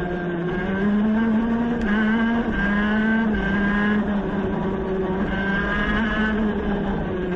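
Shifter kart's two-stroke engine heard onboard, accelerating hard up through the gears, with a short dip in pitch at each upshift. It then runs flat out near 12,000 rpm and eases off slightly near the end.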